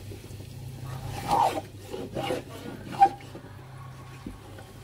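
Metal spoon scraping against a metal pot while stirring thick coconut cream and chunks of meat, a few short scrapes with one sharp clink about three seconds in, the loudest.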